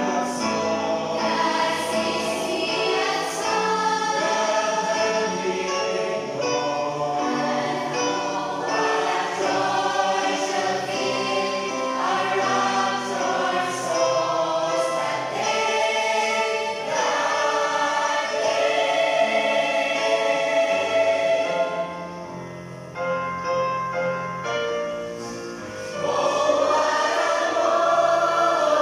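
Mixed choir of men and women singing a gospel hymn in held, sustained notes. A little past the middle the singing drops to a softer passage for a few seconds, then comes back at full voice near the end.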